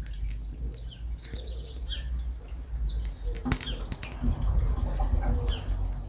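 Small kindling fire of thin dry twigs crackling as the first flames catch, with scattered sharp pops and clicks.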